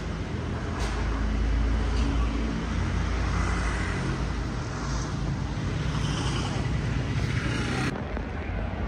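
Steady road-vehicle traffic noise, a continuous low rumble with a hiss above it that drops away suddenly near the end.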